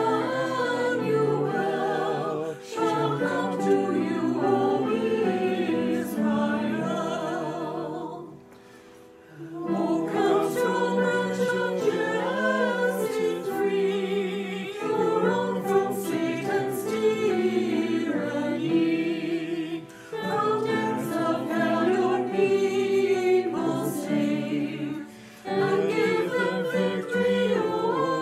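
A mixed choir of men's and women's voices singing a hymn phrase by phrase, with short breaks between phrases, the longest about eight seconds in.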